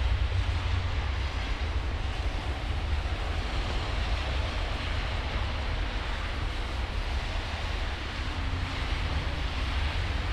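Wind rumbling on the microphone over a steady hiss of outdoor street noise.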